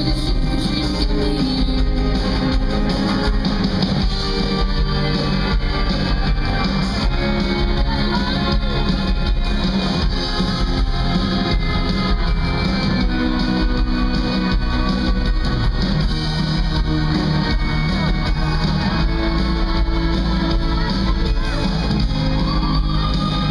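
Live band music heard from the audience, led by guitar with keyboards, and a woman singing the lead vocal.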